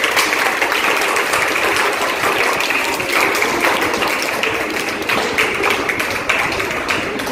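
Audience applause: many hands clapping at once in a dense, even patter.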